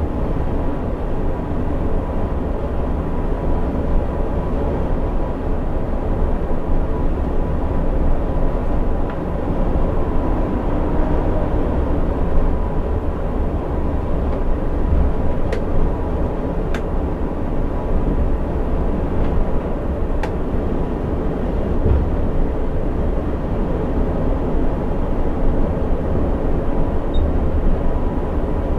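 Coach bus driving at highway speed, heard from inside the cab: a steady low rumble of engine and road noise with a faint steady high tone, and three light clicks about halfway through.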